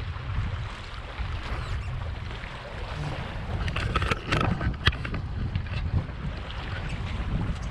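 Wind buffeting the microphone on a small sailboat under sail, with water rushing along the hull. A few short, sharper sounds stand out about four to five seconds in.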